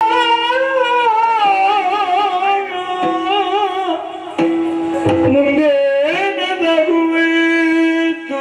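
Yakshagana bhagavata singing an ornamented, wavering melodic line over a steady drone note, with a few sharp drum strokes from the maddale and chende.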